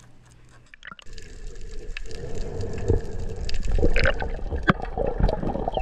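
Underwater water noise picked up through an action camera's waterproof housing: rushing and gurgling water with bubbles and scattered clicks, starting about a second in after a quiet moment.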